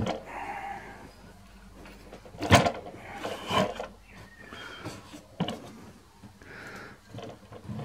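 Scrapes and clunks as a rubber drive belt is worked by hand onto the motor and saw pulleys of a bandsaw. A sharp knock about two and a half seconds in is the loudest, with softer knocks after it.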